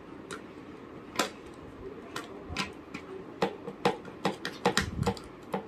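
Irregular clicks and light knocks of a screwdriver working inside a plastic fibre-optic termination box while the fibre cable is fitted into it, coming faster in the second half.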